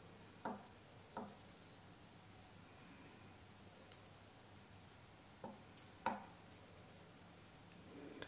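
Faint, irregular clicks and taps of metal-tipped knitting needles knocking together as stitches are worked, about one every second or so.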